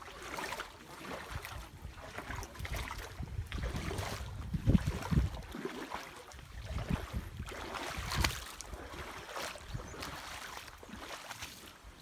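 Wind blowing on the microphone over small waves washing at the shoreline, with a couple of louder low gusts about halfway through.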